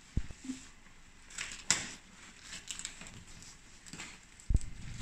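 Plastic wrapping rustling and crinkling as bagged model-aircraft parts are handled in a cardboard shipping box, with a dull thump just after the start and a louder one near the end.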